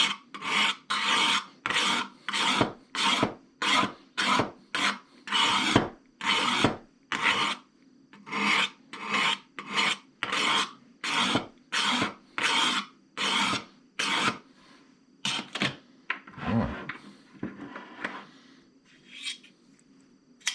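Fine-grit diamond hone stroked along a steel scissor blade's edge, in even rasping strokes about two a second. The strokes stop about fourteen seconds in, and a few scattered scrapes follow.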